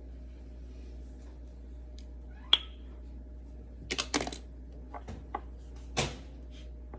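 A few sharp clicks and light taps of small plastic items being handled while a syringe dose is drawn up: a single click, a quick cluster of clicks a little later, then a few small ticks and one more click near the end.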